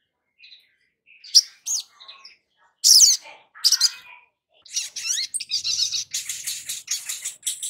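A sogon (brown-throated sunbird) giving sharp, high chirps, then from about five seconds in breaking into a fast, continuous twittering song.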